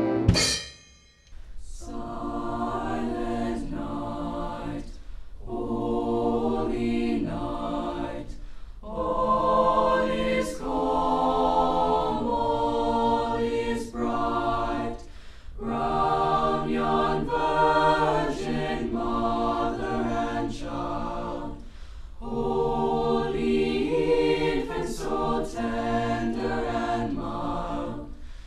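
A choir singing a slow piece in sustained phrases with short breaths between them, beginning about a second in.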